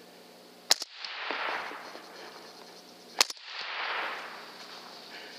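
Two .308 rifle shots about two and a half seconds apart, each followed by about a second of echo rolling away.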